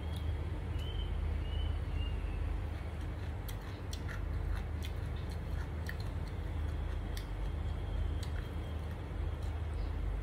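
A person eating rice and fried omelette by hand: chewing with scattered small wet clicks and smacks, over a steady low hum.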